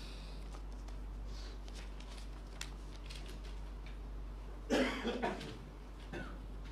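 A man coughs once, in two or three quick bursts, about five seconds in, over a steady low hum and a few faint clicks.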